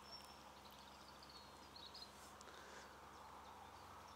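Near silence: faint outdoor lakeside ambience, with a few faint high bird chirps in the first second.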